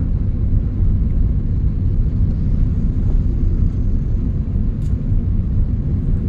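Steady low rumble of a car's engine and tyres heard from inside the cabin while it drives along at low city speed.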